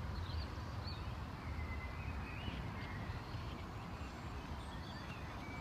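Faint, short bird chirps scattered over a low steady rumble of outdoor background noise.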